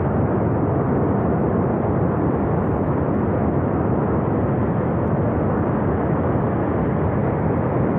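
Steady, even roar of a flash flood and debris flow rushing down a narrow mountain gorge.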